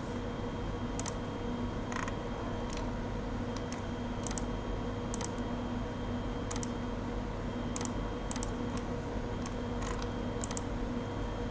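Scattered, irregular clicks of computer mouse buttons, about a dozen, some in quick pairs, over a steady electrical hum.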